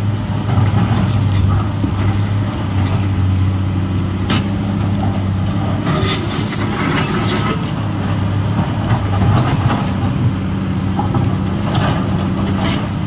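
Komatsu PC210LC crawler excavator working: its diesel engine runs steadily under load, with scattered sharp knocks of steel on rock and a high metallic squeal lasting about a second and a half, around six seconds in.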